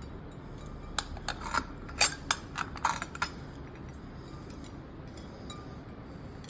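A quick run of sharp clicks and clinks starting about a second in and lasting some two seconds, then quiet: the metal and glass parts of a crystal floor lamp being handled as they are taken out of their packing.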